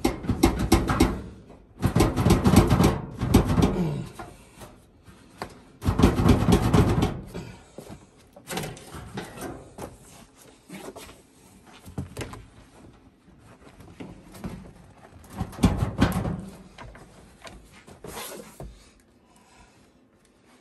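Sheet-metal inner unit of a Suburban RV propane furnace scraping and clanking against its outer box as it is yanked and pried at. It is stuck and won't slide out. The noise comes in repeated rough bursts of a second or two, loudest in the first seven seconds and dying down toward the end.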